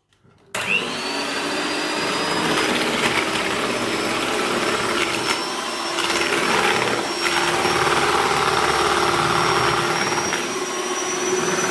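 Handheld electric mixer switching on about half a second in and running steadily, its twin beaters whipping vegetable whipping cream in a plastic bowl. The motor gives a loud steady whine with a high held tone over a lower hum.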